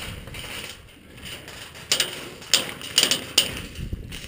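Airsoft gun firing single shots: about five sharp cracks spaced irregularly across a second and a half, starting about two seconds in.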